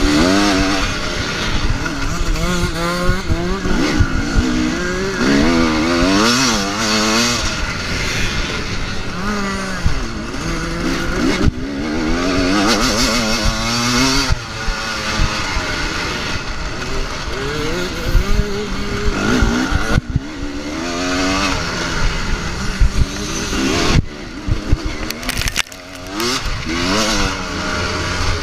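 Dirt bike engine revving hard, its pitch climbing and dropping again and again as the rider accelerates, shifts and backs off around a motocross track. Several sharp knocks come near the end.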